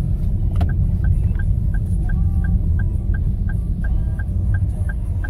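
Car turn-signal indicator ticking steadily, about three ticks a second, starting after a single click of the stalk about half a second in, over the steady low rumble of the Perodua Axia's running engine and road noise inside the cabin.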